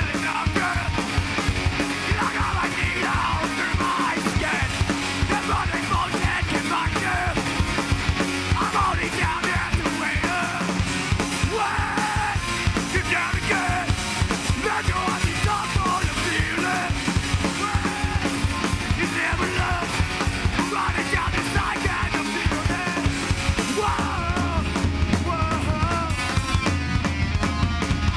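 Live punk band playing: distorted electric guitars, bass and drums, with a vocalist yelling into a microphone.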